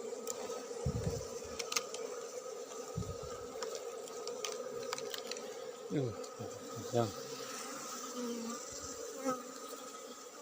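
A swarm of Asian honey bees (Apis cerana) buzzing steadily around their opened nest, with a few dull thumps from handling.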